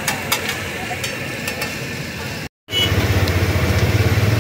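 Flat metal spatulas clinking and scraping on a large iron tawa griddle, a few sharp clinks in the first half. About two and a half seconds in the sound cuts out briefly and comes back louder with a steady low engine-like hum.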